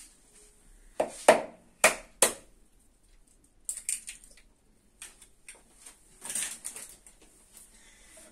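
An egg knocked sharply against the rim of a plastic mixing bowl, four quick cracks between about one and two and a half seconds in, then softer clicks and rustles as the shell is pulled apart and handled.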